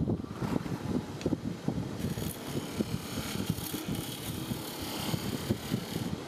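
Wood lathe running while a gouge cuts a spinning jarrah-and-blue-resin bowl blank: a steady rumble with rapid small knocks, and a cutting hiss that grows about two seconds in.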